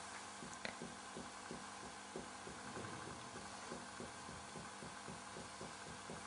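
Very light finger-on-finger percussion of the chest: an even run of soft taps, about four or five a second. This is quiet percussion over the second intercostal space, used to find the width of the vascular bundle.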